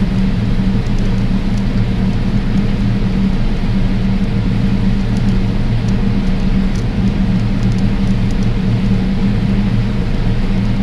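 Diesel engine of heavy farm machinery running steadily under load, with a constant low hum.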